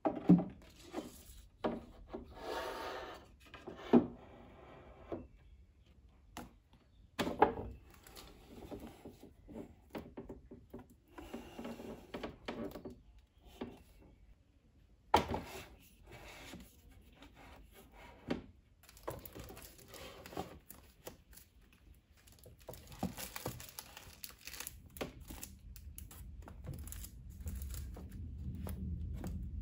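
Handling sounds on a shelf: a wooden shelf riser knocked down and shifted into place, then books slid and stood on it, with sharp wooden knocks, scraping and the rustle of book covers. The sharpest knocks come just after the start, around four seconds in, around seven seconds in and around fifteen seconds in.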